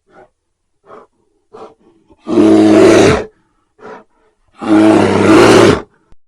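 A large animal roaring: a few short soft grunts, then two loud, harsh roars about a second long each, a couple of seconds apart.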